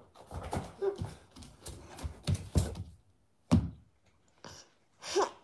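Irregular taps and knocks close to the microphone as a toddler walks up to it and handles things beside it, with one sharper knock about three and a half seconds in.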